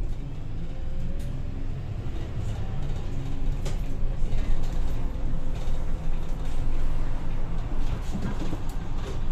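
Volvo B8RLE bus's six-cylinder diesel engine pulling away from the traffic lights and accelerating, heard from inside the passenger saloon as a steady low rumble that grows a little louder, with a few sharp ticks.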